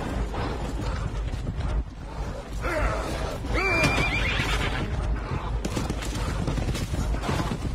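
Film soundtrack of horses galloping, a steady drumming of hooves, with a horse whinnying loudly about three seconds in.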